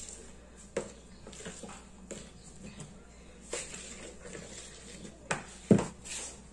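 A utensil scraping and clinking against a bowl as cake batter is stirred, in scattered knocks about a second apart, with a louder thump near the end.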